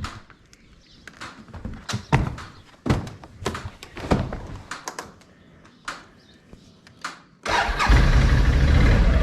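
A series of knocks and clunks, then about seven and a half seconds in the Can-Am Outlander ATV's engine starts and runs steadily.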